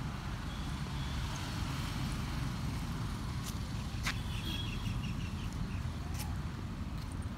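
Steady low rumble, with a short run of faint bird chirps about four seconds in.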